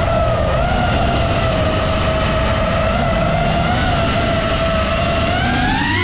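FPV quadcopter's motors whining at a steady pitch under a rough rumble of wind, the pitch wavering slightly with throttle and starting to climb near the end.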